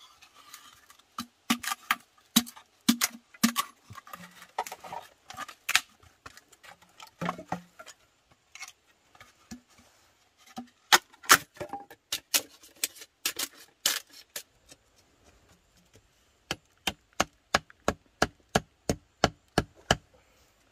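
Repeated sharp knocks of a tool striking wood or bamboo. They are irregular at first, then settle into a steady run of about three strikes a second near the end.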